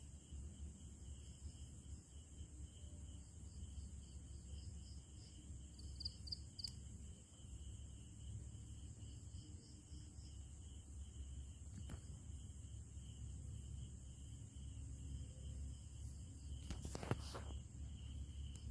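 Crickets chirping at night in a steady pulsing rhythm, over a faint low rumble. A few short clicks come near the end.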